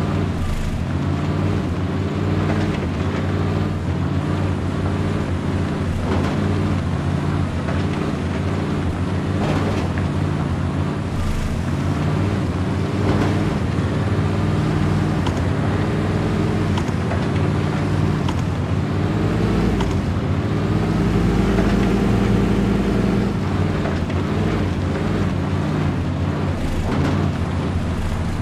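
Radio-controlled 4x4 scale off-road truck running as it crawls over dirt, its motor droning steadily with revs that rise and fall.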